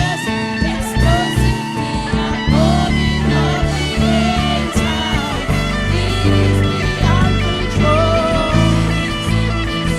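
Live worship band playing an instrumental passage, with guitar carrying gliding melodic lines over sustained bass and chords.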